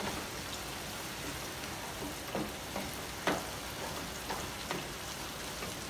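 Onion and fresh tomato sizzling steadily in a hot pan, with a few short knocks at intervals.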